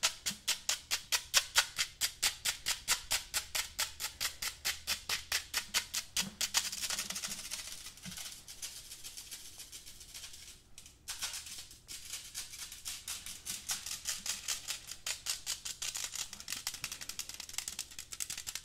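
Fingernails scratching a black wire-mesh pen cup in fast, even strokes, about five a second, with a shaker-like rasp. Midway the strokes run together into a continuous scratch and break off twice before the even strokes resume.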